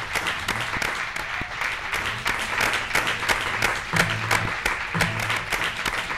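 Small audience clapping and applauding after the song, with many distinct hand claps.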